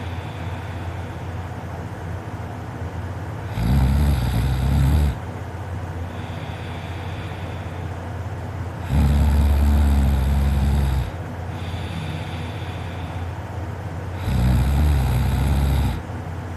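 A person snoring in sleep: three loud, low-pitched snores about five seconds apart, each lasting one to two seconds, with steady quieter noise between them.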